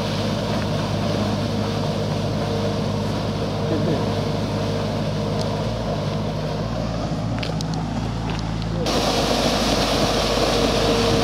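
Canal weed-clearing boat with its engine running steadily and its paddle wheel churning the water. The sound grows suddenly louder and noisier about nine seconds in.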